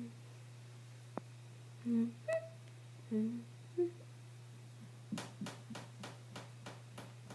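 A girl making a few short closed-mouth hums, a lock of hair held between her lips. Near the end comes a quick run of about eight clicks over two seconds, all over a steady low electrical hum.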